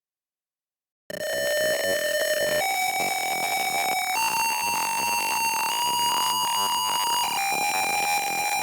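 Arduino alarm buzzer starting about a second in with a continuous, buzzy electronic tone that steps up in pitch twice, about every second and a half, then steps back down near the end. This is the rising-and-falling pitch pattern of the system's flood emergency alarm.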